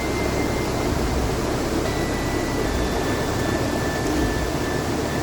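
Steady rushing of a mountain brook, an even noise that does not change.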